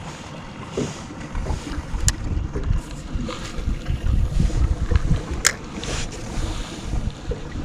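Wind buffeting the microphone in gusts, with two sharp clicks, about two seconds in and again about five and a half seconds in.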